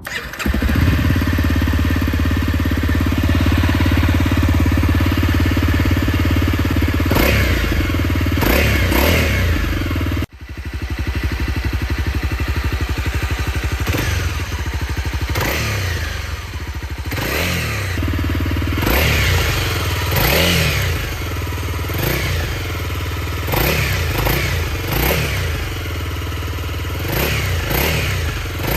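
Honda CRF250L single-cylinder four-stroke engine running and being revved again and again, each blip rising and then falling back to idle, with a brief break about ten seconds in.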